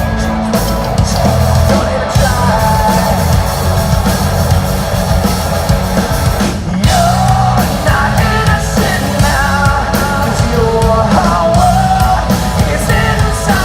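A rock band playing live and loud, with a sung vocal line over driving drums and bass.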